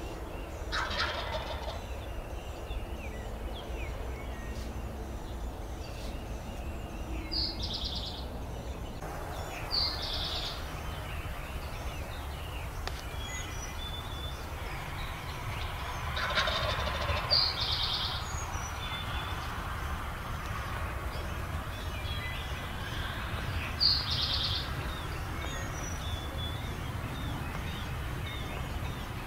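Wild turkey gobbling four times, each gobble a short rapid rattle, spaced several seconds apart. Songbirds chirp in the background over a steady low rumble.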